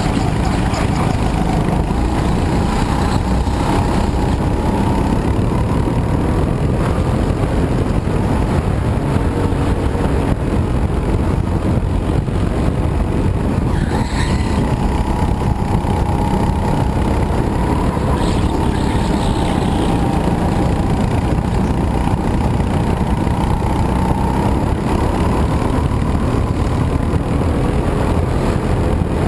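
Go-kart engine running at speed, its pitch rising and falling as the kart accelerates out of corners and slows into them, under a heavy rush of wind and track noise on the onboard microphone.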